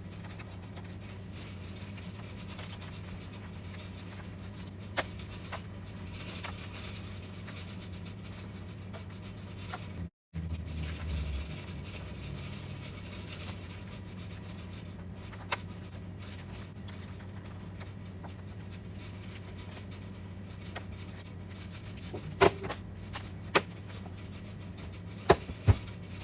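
A steady low hum with scattered sharp clicks and taps, several of them close together near the end.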